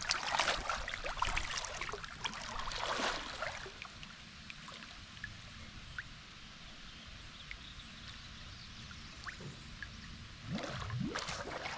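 Creek water splashing and sloshing as people duck under and move in waist-deep water, loudest in the first few seconds and again near the end, with quieter lapping in between.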